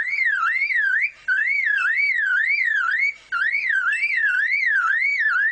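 Male superb lyrebird imitating a car alarm: a warbling whistle that sweeps up and down about two and a half times a second, broken by brief pauses about a second in and three seconds in.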